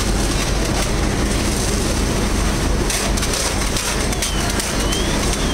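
Steady loud din at a working building fire: fire apparatus engines running with a constant low hum, under the rush of hose streams spraying water.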